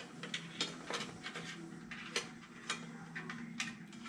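Irregular light clicks and taps of small hard parts being handled while working on a PC case, about a dozen, the sharpest a little after two seconds, over a steady low hum.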